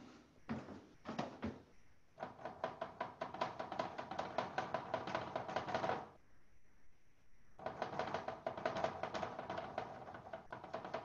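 Pencil shading on paper: a few single strokes, then fast back-and-forth scribbling at about ten strokes a second. It pauses briefly a little past the middle, then starts again.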